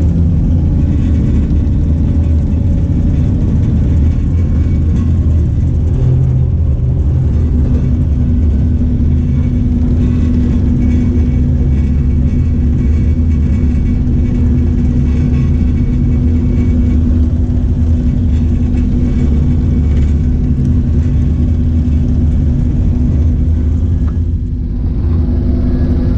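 Cat mini excavator's diesel engine running steadily, a deep sound with a held hum, dipping briefly near the end.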